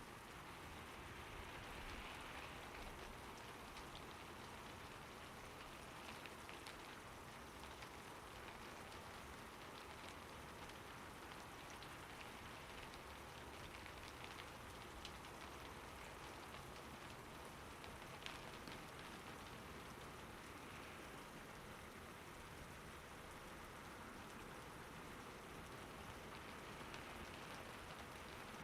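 Very faint steady hiss with a few soft scattered ticks, close to silence, after the music has stopped.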